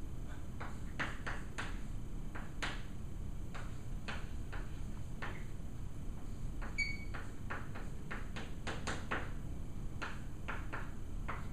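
Chalk writing on a blackboard: many short, irregular taps and scrapes of the chalk as letters are formed, with one brief high squeak of the chalk just past the middle, over a steady low room hum.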